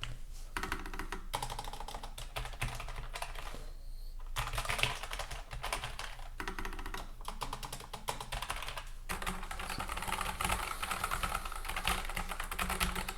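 Fast typing on mechanical keyboards, a rapid stream of key clicks with two short pauses, about half a second in and about four seconds in.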